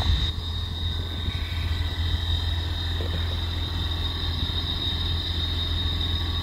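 A motor running steadily: a low hum with a thin, high-pitched whine held above it.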